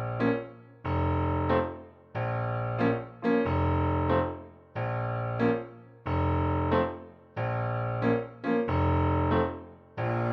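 Background music: piano-like keyboard chords over a deep bass note, struck in a steady repeating pattern about every second and a half, each chord fading before the next.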